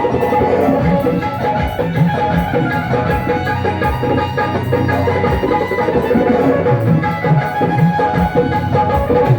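Instrumental passage of a Rajasthani devotional bhajan: drums keep a steady beat under long held melody notes, with no singing.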